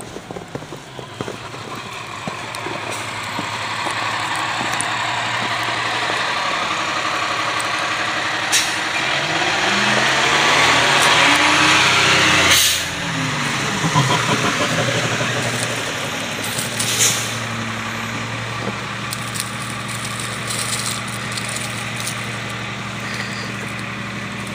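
A motor vehicle drives past on the street: tyre and engine noise swells over about ten seconds, peaks about twelve seconds in with the engine note dropping in pitch as it passes, then fades. A steady low engine hum remains afterwards.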